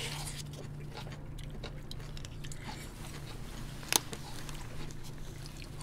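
Chewing of food, with faint small clicks of utensils and one sharp click of a utensil against a takeaway container about four seconds in.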